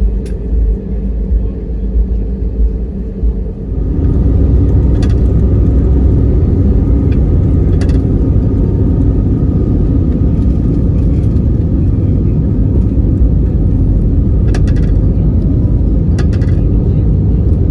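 Airliner cabin noise: the jet engines and airflow make a loud, steady low rumble that steps up sharply about four seconds in and then holds.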